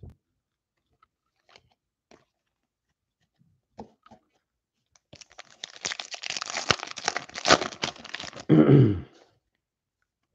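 Foil wrapper of a trading-card pack torn open by hand: a few light clicks of cards being handled, then about three seconds of dense crinkling and tearing, ending in a short, louder, deeper rustle.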